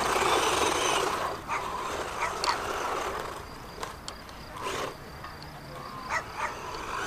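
Funtek MT12 radio-controlled monster truck driving on a dirt track: its electric motor and gears whine and its tyres run over loose dirt. It is loudest in the first second, then quieter as the truck runs off round the far bend.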